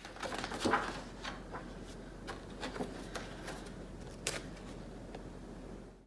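Light rustling and scattered clicks of handling, like paper and a book being moved, over a steady low hum; it all cuts off suddenly at the end.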